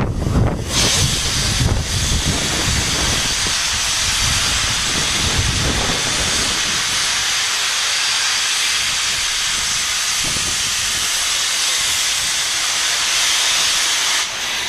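A steam locomotive, the LMS Jubilee 45596 Bahamas, releasing a loud, steady hiss of steam. A little rumble underneath in the first few seconds; the hiss eases just before the end.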